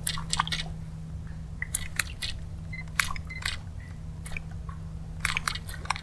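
Light, irregular clicks and ticks from a fishing rod and reel being worked to twitch a surface stick bait, coming in quicker clusters near the end, over a faint steady low hum.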